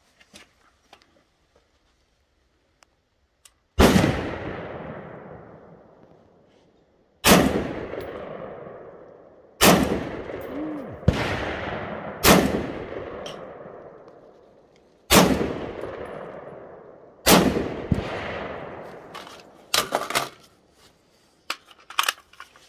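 S&W MK14 AR-15-style semi-automatic rifle firing six single shots, two to three seconds apart. Each crack is followed by a long rolling echo that fades over about two seconds. A few lighter clicks and knocks come near the end.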